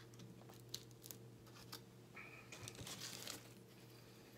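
A few light taps as a glass is set down on the table, the sharpest about a second in, then the foil sandwich wrapper crinkling for about a second as a bagel sandwich half is lifted from it.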